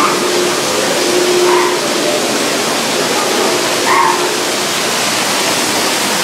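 Steady rushing of a man-made waterfall inside a rock tunnel, with two short faint calls over it, about a second and a half and four seconds in.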